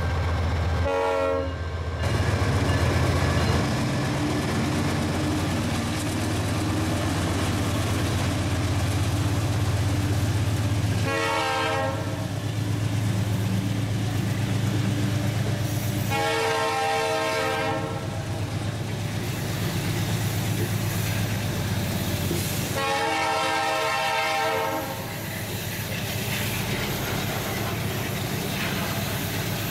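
Freight train passing close by: the diesel locomotives' engines running with a steady low hum, then the wagons rolling past. A train horn sounds four times, a short blast near the start, another about 11 seconds in, then two longer blasts.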